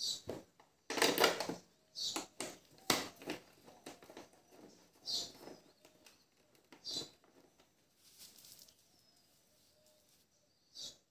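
Screwdriver and hands working screws into a motorcycle's plastic bubble visor: irregular clicks, scrapes and rattles of plastic and metal, quieter near the end.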